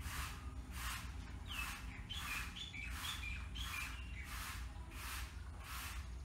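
Broom sweeping a bare concrete floor: even scraping strokes, about three every two seconds. A bird chirps a quick run of short notes in the first half.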